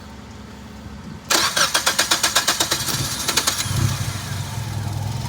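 A 1998 Nissan Sentra SE-R's SR20DE four-cylinder engine is cranked by its starter, energised by a jumper from the starter signal wire touched to the battery positive to get round a no-crank fault. About a second in, the starter cranks rapidly and evenly for about two seconds. The engine then catches and settles into a steady idle.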